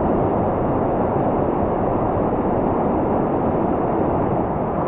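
Steady rush of falling water from a waterfall, an even roar with no breaks or splashes.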